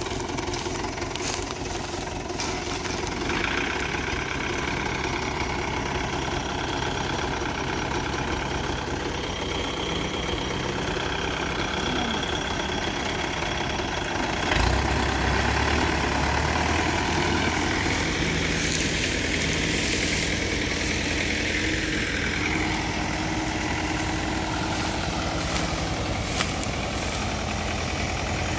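Tractor's diesel engine running continuously. About halfway through, after a short thump, it turns louder with a deeper drone.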